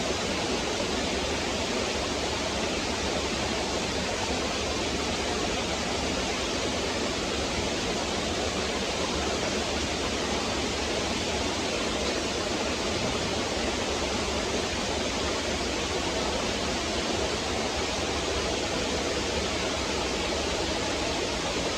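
Stream water rushing and babbling over rocks in a steady, unbroken flow.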